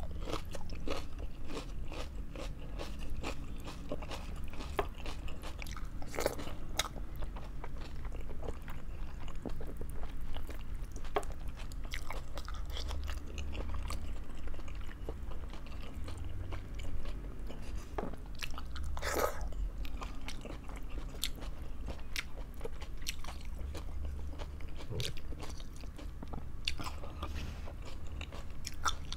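Close-miked chewing and biting of food, a continuous run of small wet mouth clicks, with a few louder ones about six and nineteen seconds in, over a steady low hum.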